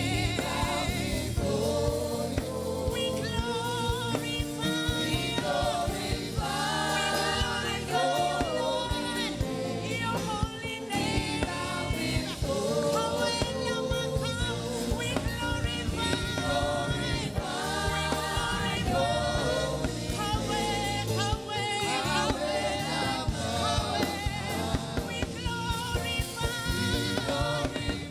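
Gospel worship song: several voices singing together over instrumental accompaniment with a steady beat.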